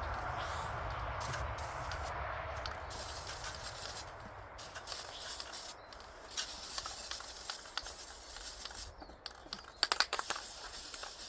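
Aerosol can of PJ1 air filter cleaner spraying onto a chainsaw air filter. There is one long hiss at first, then a run of shorter sprays with brief breaks between them.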